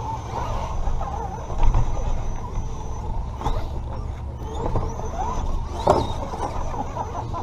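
Redcat Gen7 Pro RC rock crawler's electric motor and drivetrain whining from on board, the pitch wavering with the throttle. Two sharp knocks come about three and a half and six seconds in.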